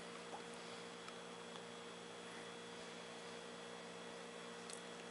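Faint steady electrical hum with a low hiss: quiet room tone, with a few barely audible small ticks.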